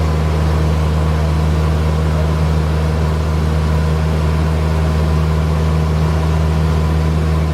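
Steady drone of a Cessna 172's piston engine and propeller heard inside the cabin, a constant deep hum with engine noise above it.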